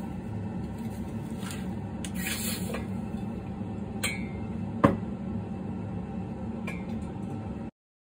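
Steady low hum of workshop background noise, with a brief hiss about two seconds in, a few light clicks and one sharp click just before five seconds. The sound cuts off to silence near the end.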